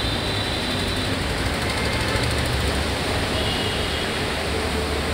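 Dense road traffic on a rain-soaked road: a steady hiss of tyres on the wet surface over the low rumble of cars, buses, trucks and auto-rickshaws.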